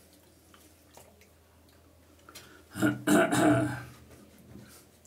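A man makes one loud, throaty vocal sound, about a second long, roughly three seconds in. Before and after it there are only a few faint ticks.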